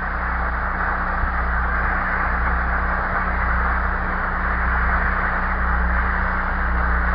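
Audience applauding steadily on an old, narrow-band recording, with a low hum underneath.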